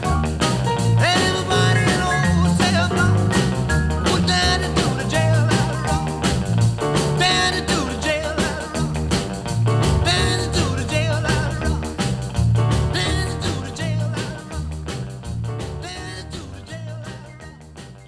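Background music with a steady beat, fading out over the last few seconds.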